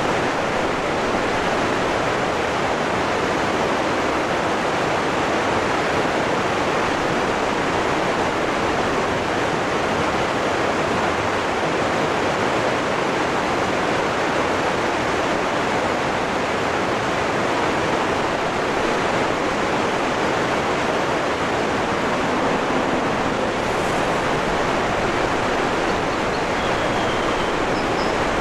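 Waterfall rushing, a steady, even roar of falling water with no change in level. Two faint short high tones sound near the end.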